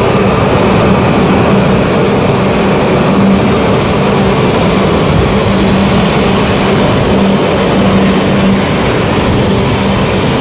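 E5-series Shinkansen train running past alongside the platform: a loud, steady rush of air and wheel-on-rail noise, with a low hum that fades in and out.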